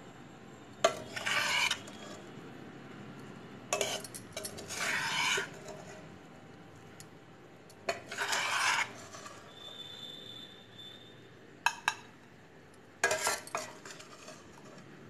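Metal spatula scraping and turning a dry vegetable fry around a kadai, in five rough strokes a few seconds apart, with a pair of quick sharp clicks of metal on the pan near the end.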